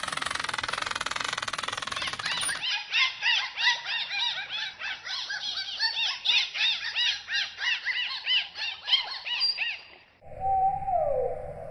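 Dolphin sounds: a fast buzz of clicks for the first couple of seconds, then a rapid run of short whistles, each rising and falling in pitch. After a brief break near the end, a lower whistle comes in, repeatedly sliding down in pitch.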